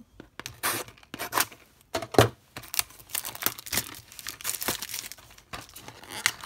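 Clear plastic shrink-wrap on a small cardboard Disney Doorables blind box being cut with scissors and peeled off, in a run of crinkling, tearing rustles, the loudest about two seconds in.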